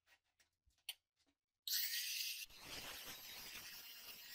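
A few faint clicks, then about a second and a half in an electric angle grinder's disc bites into a steel bicycle chainring: a sudden loud, high grinding that settles into a steady cutting noise.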